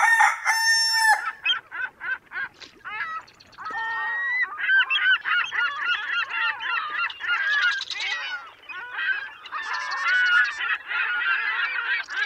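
A flock of birds calling over one another: a loud call at the start, a few scattered calls, then from about four seconds in a dense chorus of overlapping cries.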